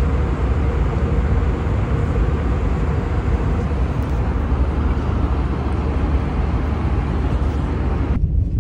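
Airliner noise: a steady, loud low rumble under an even rushing hiss, with a faint steady hum. Near the end the hiss drops away, leaving the low rumble.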